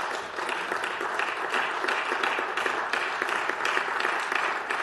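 Applause from the assembly: many people clapping steadily.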